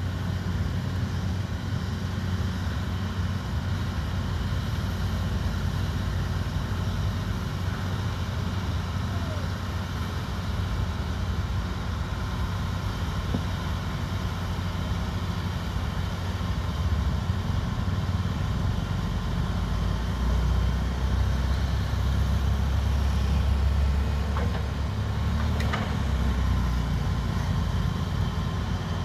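Tracked excavator's diesel engine running steadily as the machine climbs a sandy riverbank, with a deeper rumble for several seconds about two-thirds of the way through.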